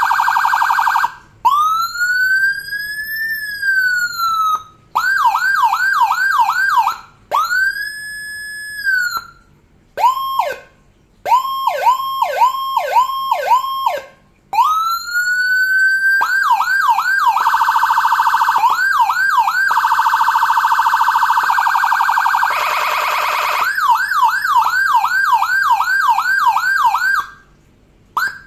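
Electronic vehicle siren, Whelen-style, cycling through its tones: a slow wail rising and falling, fast yelp sweeps about two or three a second, a rapid warbling phaser, and short steady horn-like blasts. It stops briefly about a second before the end.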